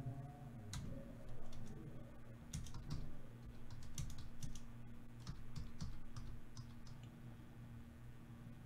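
Computer keyboard typing: a run of irregular key clicks that stops about seven seconds in, over a steady low hum.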